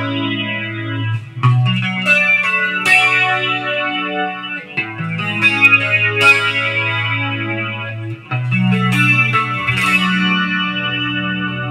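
Electric guitar played through an Electro-Harmonix Deluxe Electric Mistress flanger into a Boss DD-20 delay in smooth mode, with the delay level set low (25). Sustained chords ring on, and a new chord is struck every second or two.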